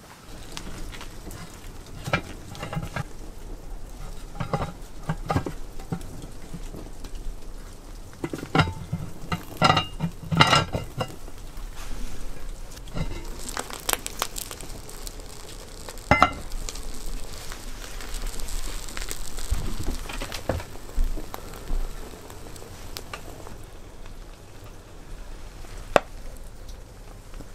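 Sizzling from a steaming cauldron of stew over a wood fire, with scattered knocks and clinks through the first half. A single sharp knock of a knife on a wooden cutting board comes near the end.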